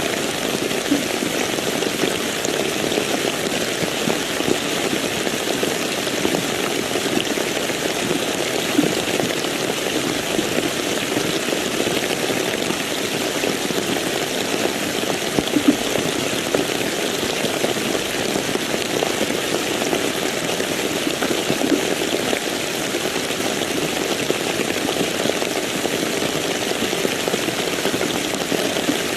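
Steady rainfall: an even hiss of rain with a few louder individual drops splashing.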